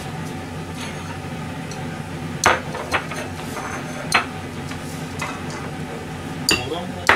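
Crockery being handled, clinking and knocking about five times, including a small porcelain plate set down on a stainless-steel counter about four seconds in. A steady low hum runs underneath.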